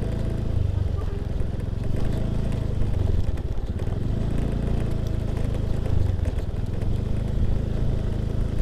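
Small motor scooter engine running at low speed, a steady low hum that swells slightly a few times, with small clicks and knocks from riding over a rough gravel track.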